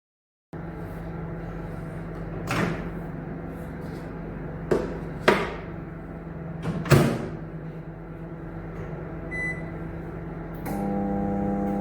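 Commercial microwave oven being handled and started: a few door clunks and clicks over a steady low hum, then one short high beep from the control panel. Near the end it starts running with a louder, buzzing mains hum.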